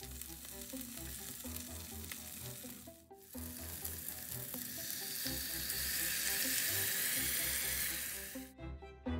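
Butter sizzling with boiled potato cubes in a stainless steel saucepan: a steady frying hiss that breaks off briefly about three seconds in, then comes back and grows louder in the second half.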